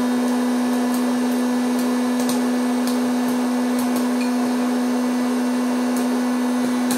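Silvercrest 1200 W hot-air popcorn maker running, its fan blowing hot air with a steady hum, while corn kernels inside pop here and there with short sharp cracks as the popping gets under way.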